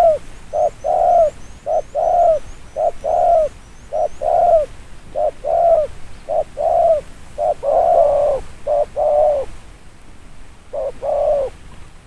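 Spotted dove cooing over and over in short, deep coos, about one a second, with a brief pause near the end before a last coo. A small bird gives a quick run of faint high chirps in the first two seconds.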